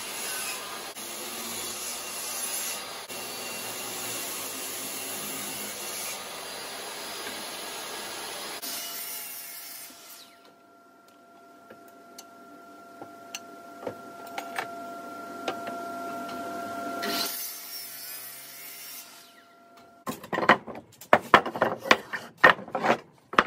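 Table saw cutting pallet-wood slabs on a crosscut sled, a steady dense rush of blade noise. After about nine seconds it gives way to a quieter stretch with a faint steady hum and a few ticks, and near the end come a quick run of sharp wooden knocks as cut blocks clatter together.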